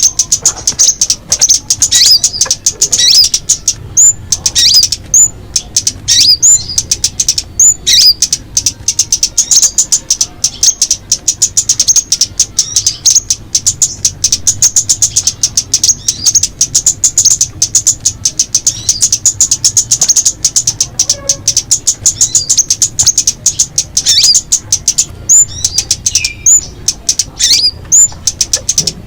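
Small birds calling continuously: a dense, rapid run of high chirps and clicks, many each second, with short downward-sweeping whistled notes breaking in again and again.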